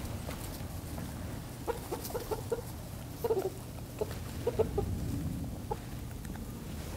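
Backyard chickens clucking in short, separate notes while pecking treats from a hand, with a run of clucks about two seconds in and more between three and six seconds in.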